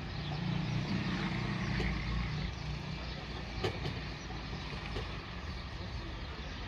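Low engine rumble of a motor vehicle, loudest in the first two seconds or so and then easing off, over steady outdoor background noise.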